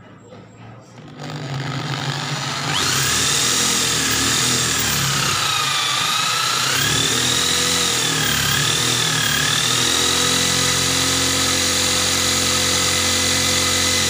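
Electric drill spinning up about a second in and running at speed, its motor whine dipping and wavering in pitch through the middle as the bit is pressed onto galvanized hollow steel tube. The resharpened bit is not biting into the steel.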